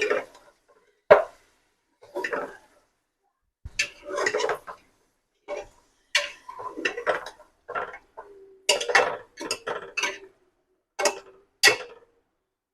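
A spoon scraping and clanking against the inside of a pressure cooker as beef and fried onions are stirred. Short irregular strokes come about once a second.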